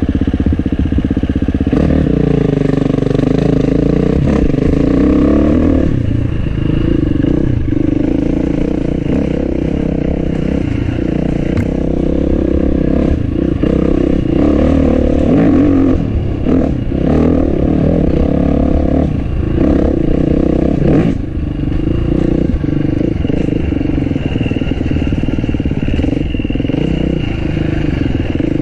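Enduro dirt bike engine revving hard while being ridden, its pitch rising and falling repeatedly as the throttle is worked and gears change. Clattering knocks from the bike over rough ground come through at times.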